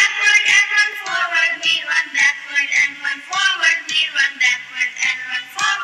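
Voices chanting in a quick, even rhythm over music, loud throughout.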